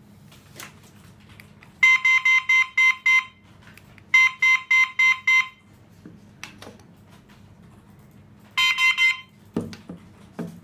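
KERUI J009 wireless flash siren beeping in three bursts of quick, high-pitched beeps, about five a second, as it is paired with an F8 wireless transmitter; the last burst is the shortest. A few light knocks from handling the units, some near the end.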